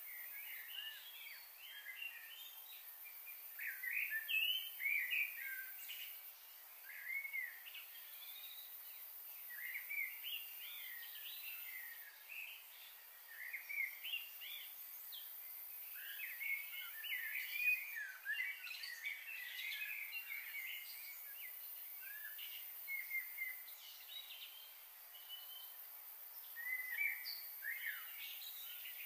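Birds chirping busily, many short calls overlapping in clusters, over a faint steady high hiss.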